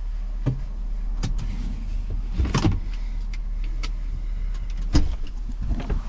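Steady low rumble of a vehicle, with scattered clicks and knocks, one louder knock about five seconds in.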